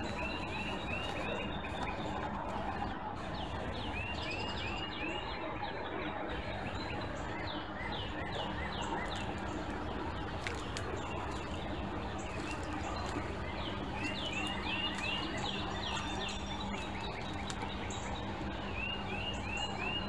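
Songbirds singing: short phrases of quick repeated chirps every few seconds, over steady background noise with a faint low hum.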